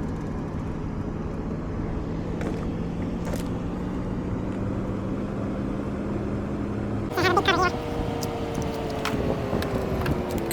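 Steady engine hum, like a vehicle idling, with a short warbling chirp about seven seconds in.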